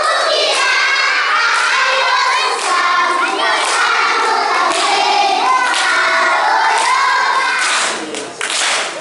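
A crowd of young children singing and shouting together, with hand-clapping that stands out more sharply near the end.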